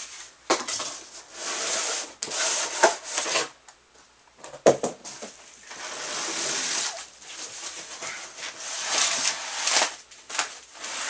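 Cardboard boxes scraping and rubbing against each other as a guitar box is slid out of its shipping carton, with a few knocks along the way.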